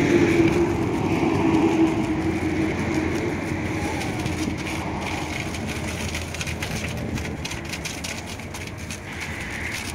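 High-pressure water jet spraying foam off a tipper truck's body and chassis: a steady rushing hiss. A steady low hum runs under it for the first few seconds, then fades.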